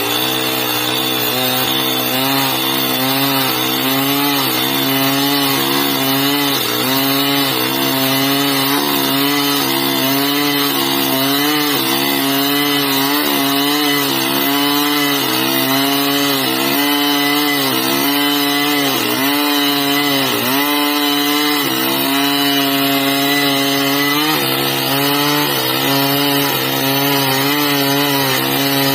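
Chainsaw running under load as it cuts through a tree, its engine pitch dipping and recovering every second or two as the chain bites into the wood.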